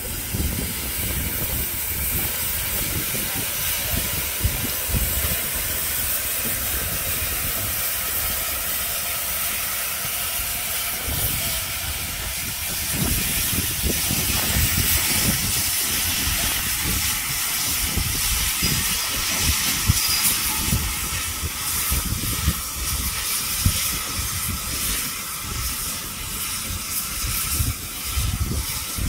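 GWR 4500 Class 2-6-2 Prairie tank steam locomotive hissing steam steadily as it moves slowly along the track, with low rumbling underneath.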